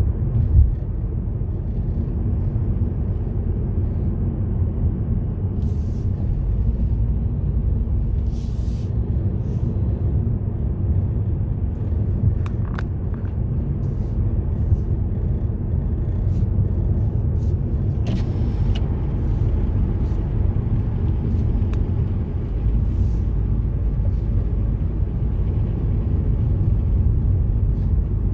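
A car driving along a road: a steady low rumble of road and engine noise, with a few faint ticks and knocks.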